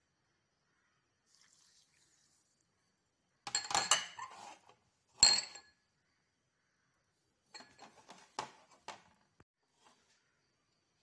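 White scalloped bowls clinking and knocking against each other as they are handled. A cluster of clinks comes a few seconds in, then one sharp, loud clink, then lighter knocks later on.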